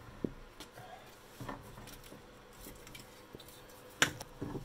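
A few light, scattered clicks and knocks of metal parts as an old rear strut and coil spring assembly is worked loose and lowered out of the wheel well, the loudest knock about four seconds in.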